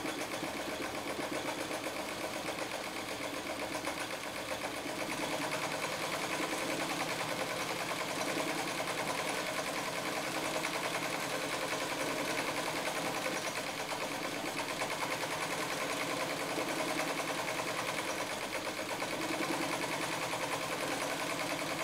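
Vintage White electric sewing machine running steadily at speed, its needle stitching rapidly through leather in free-motion quilting, the pace easing and picking up slightly a few times.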